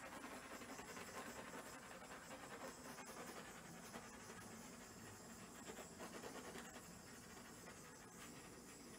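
Small handheld butane torch hissing faintly and steadily as its flame is passed over wet acrylic pour paint.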